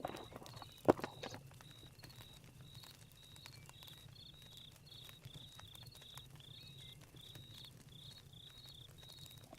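Crickets chirping in a steady train of short, high pulses over a crackling campfire, with one loud sharp snap from the fire about a second in.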